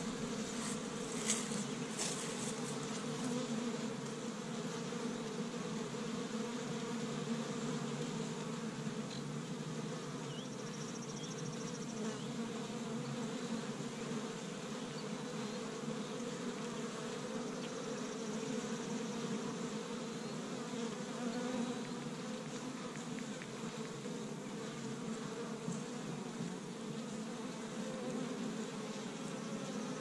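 Many honey bees buzzing at a busy hive entrance as foragers fly in and out: a steady, close hum that swells and fades slightly as bees pass. A couple of brief clicks about a second in.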